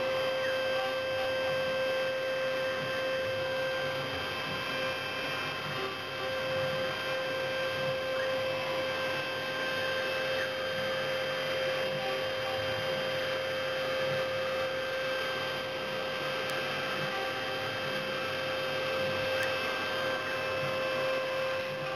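CNC milling machine running steadily, its spindle giving an even whine of several steady pitched tones over a background hiss.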